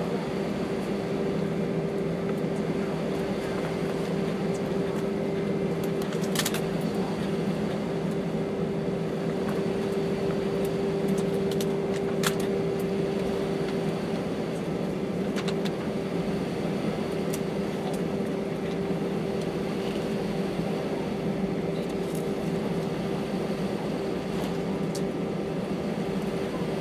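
Airbus A319 cabin noise while taxiing: a steady engine hum with a steady tone, and a few faint clicks.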